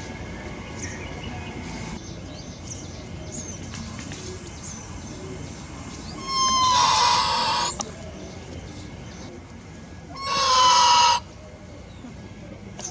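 Two loud animal calls about four seconds apart, each lasting a little over a second, over faint high bird chirps.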